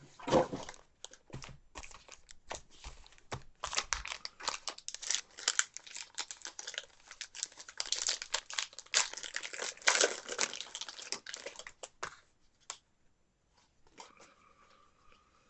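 Plastic trading-card pack wrappers crinkling and rustling in irregular bursts as a box of baseball card packs is handled and stacked, then a pack is torn open. It falls quiet about three seconds before the end.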